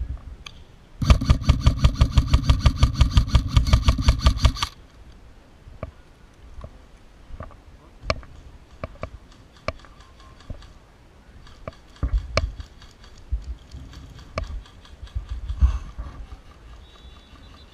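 A loud, rapidly pulsing buzz, about five or six pulses a second, starts about a second in and lasts nearly four seconds. Scattered sharp clicks and knocks follow.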